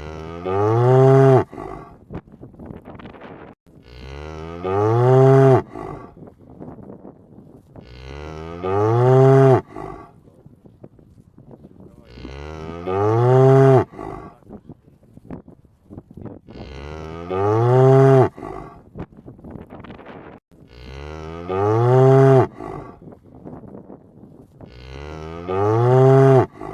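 Cow mooing, seven near-identical moos at even intervals of about four seconds. Each moo starts low, swells and arches in pitch, and is loudest near its end before cutting off.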